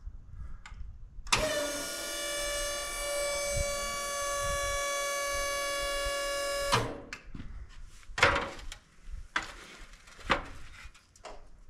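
The Snorkel UNO 33E boom lift's electric hydraulic pump runs for about five seconds with a steady whine, starting and stopping abruptly. A few knocks and clunks of handling follow.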